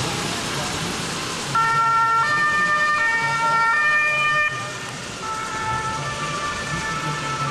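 Emergency vehicle's two-tone siren (German Martinshorn), two pitches alternating about every three-quarters of a second, starting about a second and a half in. It drops in level a little past halfway and goes on more faintly, over a steady background rush.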